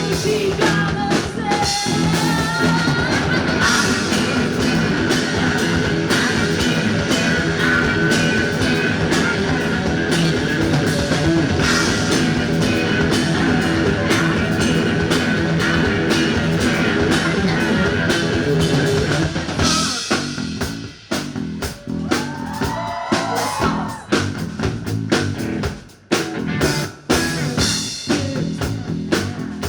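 A rock band playing live on drum kit and guitars in a dense, continuous full-band section. About twenty seconds in, it breaks down into stop-start hits with a lone guitar line.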